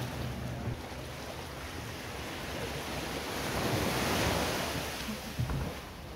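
Surf washing up on the shore, the rush of water swelling to its loudest about four seconds in and then easing off.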